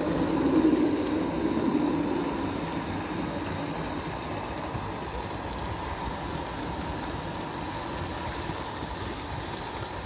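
Roundhouse Darjeeling D-class Garratt live-steam model locomotive running along the track, giving a steady hissing running noise that is a little louder in the first two seconds.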